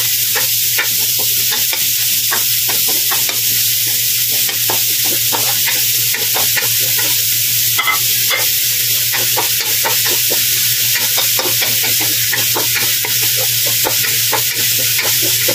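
Ground pork, garlic and onion sizzling in hot oil in a metal wok, with the repeated scrape and tap of a wooden spatula stirring it against the pan.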